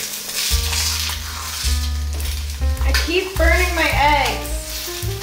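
An egg sizzling as it fries in a nonstick pan, with a spatula moving it around in the pan. Background music with a bass line runs underneath, and a singing voice comes in about three seconds in.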